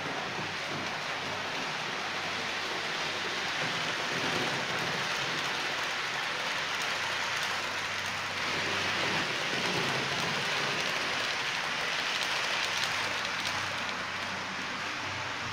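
H0-scale model freight train, a Vectron electric locomotive hauling tank wagons, rolling along the track: a steady rushing rattle of small wheels on rails, louder in the middle as the wagons pass close.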